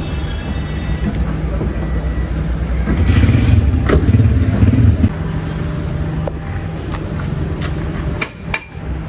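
A motor vehicle engine running steadily, louder for about two seconds in the middle, with a few sharp metal clinks from a wheel brace being worked on the wheel nuts.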